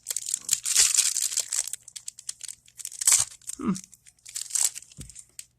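Foil trading-card booster pack wrapper being torn and crinkled: an uneven high-pitched rustle, densest in the first couple of seconds, then in shorter spurts.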